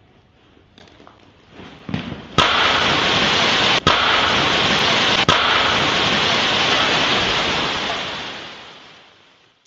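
Firework spark fountain set off, starting with a sudden loud rushing hiss about two and a half seconds in and spraying steadily for about five seconds, with two very short breaks, before fading away. A few faint crackles come before it.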